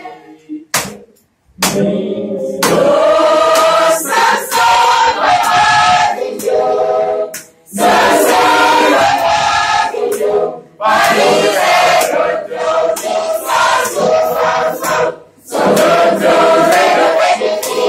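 Mixed choir of men and women singing together from song sheets, practising a Batak-language Christmas song. The singing picks up after a short pause about a second and a half in and goes on in phrases with brief breaks between them.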